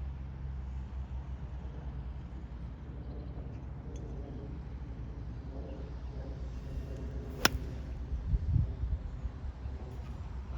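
A golf club strikes the ball once with a single sharp click about seven and a half seconds in, over a steady low rumble.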